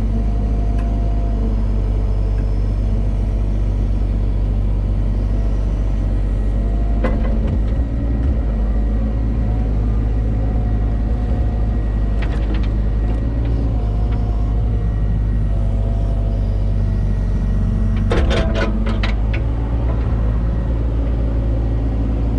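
Heavy diesel engine running steadily with a deep rumble, with a few short clanks about a third of the way in and again near the end.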